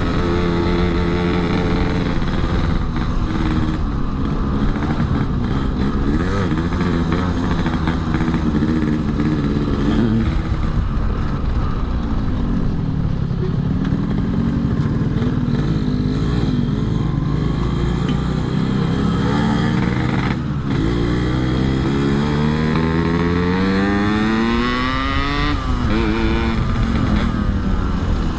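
Yamaha RX-King two-stroke single-cylinder motorcycle engine running under way, its pitch rising and falling with the throttle. Near the end it rises steadily for several seconds, then drops sharply.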